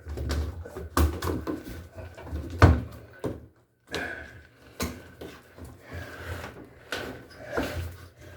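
Knocks and clatter of washing-machine panels and parts being handled during disassembly, a few separate knocks with the loudest about two and a half seconds in.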